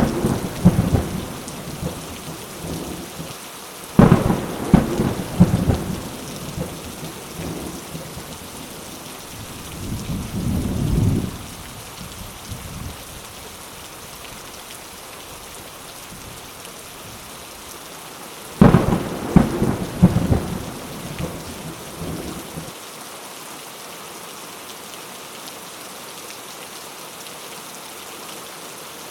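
Steady heavy rain hissing, with thunder: sharp cracks about 4 seconds and 18 seconds in, each followed by a few seconds of rolling rumble, and a lower rumble swelling between them around 10 seconds in. After the last rumble dies away, only the rain remains.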